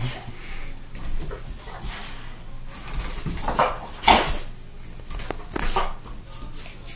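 Dogs, a boxer and a Boston terrier, sniffing and snuffling at a tile floor while chasing a laser dot. Short noisy puffs of breath come about three and a half and four seconds in, and again near six seconds.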